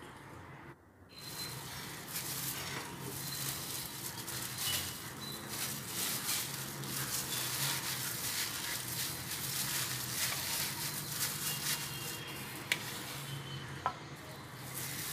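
Thin plastic cling wrap and a disposable plastic glove crinkling and rustling as a bowl of dough is covered, with two sharp clicks near the end.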